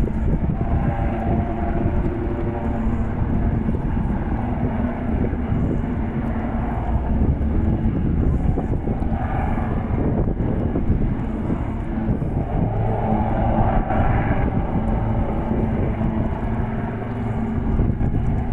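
Two display helicopters flying in formation, their rotors and engines heard at a distance as a steady drone that swells and fades a few times as they manoeuvre.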